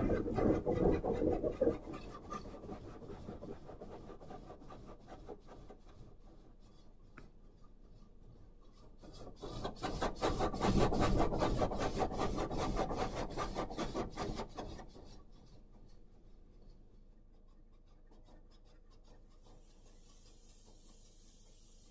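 Carwash spray jets pelting the car's roof and windows, heard from inside the car, with a rapid rasping patter. The spray is loud at first and fades, swells again as it passes over the car about ten seconds in, then dies away to a faint hiss.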